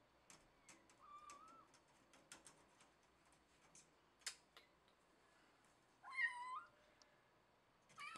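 Cat meowing: a faint short meow about a second in, then one loud meow about six seconds in, with another starting at the very end. Faint scattered clicks are heard between the calls.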